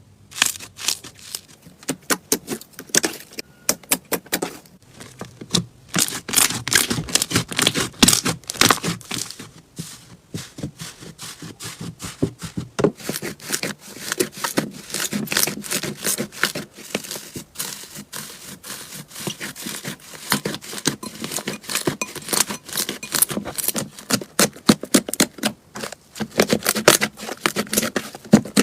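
Slime being squished and pressed by hand, giving dense, irregular crackling and clicking pops.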